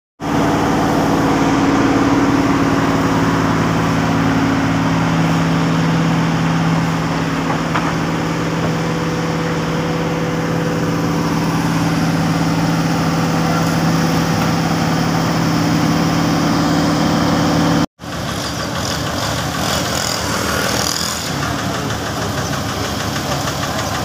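Diesel engine of an ABG asphalt paver running steadily, with an even, pitched drone. It cuts off abruptly about 18 seconds in and comes back rougher and noisier.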